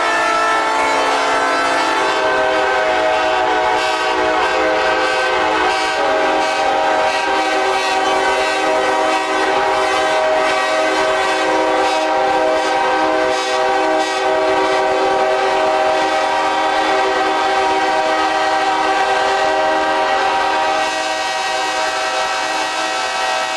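Several locomotive air horns blowing together in one long, unbroken chord. The mix of notes shifts about two seconds in and again near the end, where it gets a little quieter.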